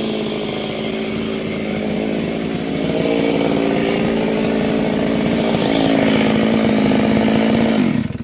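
Stihl two-stroke chainsaw running at high revs cutting mango wood, growing louder about three seconds in and again near six seconds. Near the end its pitch sags and it stops abruptly.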